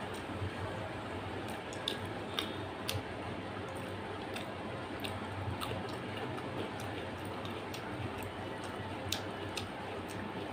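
Wet chewing and mouth smacks of someone eating mutton curry and rice by hand, with soft squishes of fingers mixing rice into curry. Small sharp clicks come every second or so over a steady background hum.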